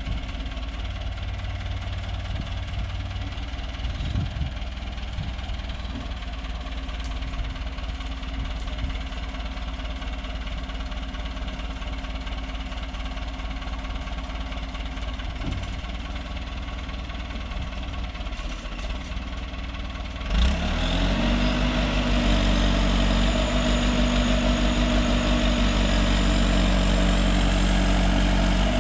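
Backhoe engine running steadily, then revving up sharply about two-thirds of the way through and staying louder under hydraulic load as the boom works, with a thin high whine near the end.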